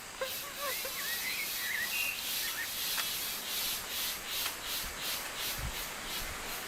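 A high-pitched insect chorus pulsing about three times a second, steady throughout. In the first second and a half a rufous-bellied thrush gives a few soft, short whistled notes.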